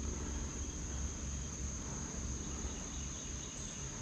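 Insects chirring steadily at one high pitch over a faint low rumble of outdoor background noise.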